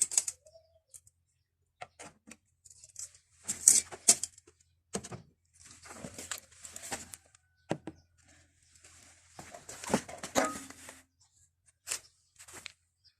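A screwdriver working screws out of the plastic top cover of a twin-tub washing machine's spin dryer: scattered clicks and short scraping, rattling bursts.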